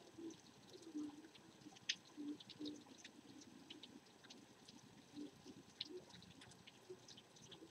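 Faint rain: scattered, irregular taps of raindrops over a soft steady hiss.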